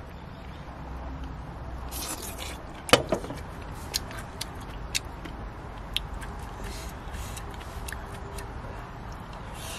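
A wooden spoon knocking and scraping against a stainless steel camping cup while food is scooped and eaten: a few sharp clicks about a second apart, the loudest about three seconds in, over a steady low background rumble.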